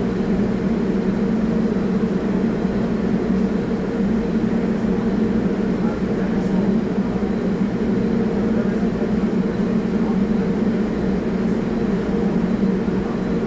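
Stationary R44 subway train's onboard equipment running with a steady hum, two bands of low tone that neither rise nor fall.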